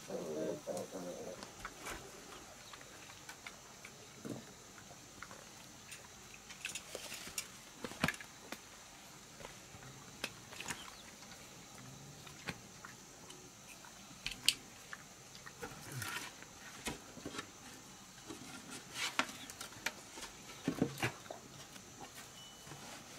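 Scattered soft clicks and knocks from handling tools and a wooden board, with a few grunts from wild boar piglets near the start, over a faint steady high hiss.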